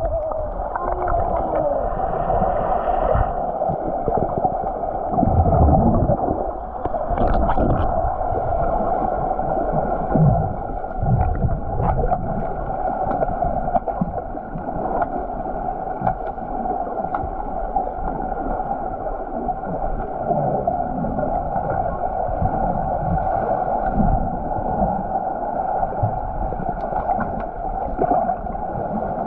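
Underwater sound through a submerged camera in a swimming pool: a steady hum runs throughout, over muffled irregular thuds and bubbling from swimmers moving and grappling nearby.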